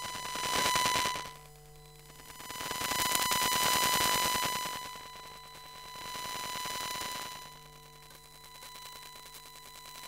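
Electromagnetic interference from a wifi router picked up by a telephone pickup coil: a steady high-pitched tone under buzzing static that swells and fades. The static is loudest about a second in and again from about three to five seconds, and dies down in between and near the end.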